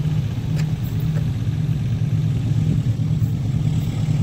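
Diesel locomotive approaching, its engine a steady low drone.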